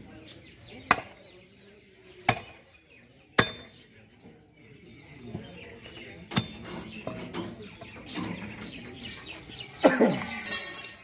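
Butcher's cleaver chopping beef on a wooden block: four sharp single chops spaced one to three seconds apart, then a louder scuffling noise near the end.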